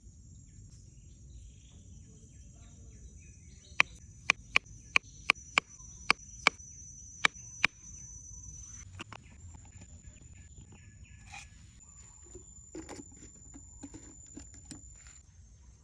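Insects, crickets by the sound, keeping up a steady high-pitched chirring, with a quick run of about nine sharp clicks, roughly two a second, from about four to eight seconds in.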